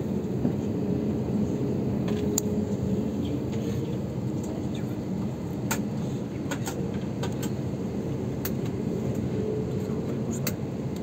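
Cabin noise of an Airbus A321neo taxiing: a steady low rumble of the engines and rolling gear, with a faint held whine and scattered light clicks.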